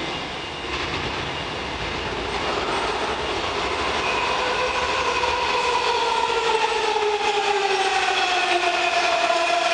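Washington Metro train arriving at an underground station platform, growing steadily louder as it comes in. Its electric motor whine falls in pitch as the train slows.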